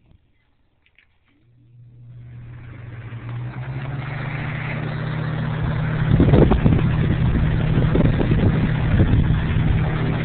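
A 1999 Lasko box fan starting up from standstill. After a faint click, its motor hum comes in about a second and a half in, and the rush of air grows steadily louder as the blades spin up. From about six seconds in it turns louder and gusty.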